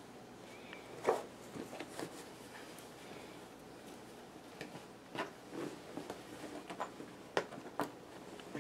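Sparse handling noises: light clicks, taps and rustles, with the sharpest knock about a second in and a few more close together near the end.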